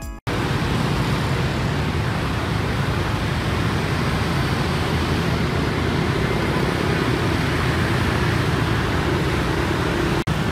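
Steady street traffic of many motor scooters and motorbikes riding past, their small engines and tyres blending into one continuous noise. It cuts out for an instant near the end.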